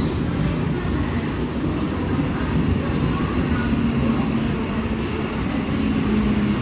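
Mumbai local electric multiple-unit train running through the station with a steady low rumble; a low steady hum grows stronger in the second half.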